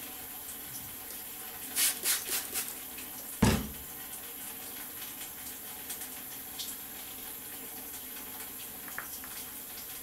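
Hair being handled and untwisted close to the microphone: a few brief rustling scratches about two seconds in and a single thump about a second later, over a steady background hiss.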